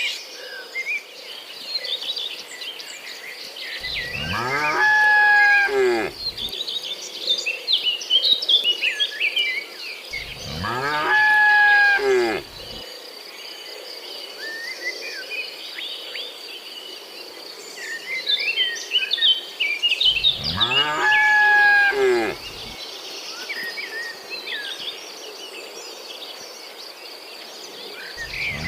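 Cattle mooing: three long moos, each alike, about four, ten and twenty seconds in. Birds chirp between them, over a steady high insect drone.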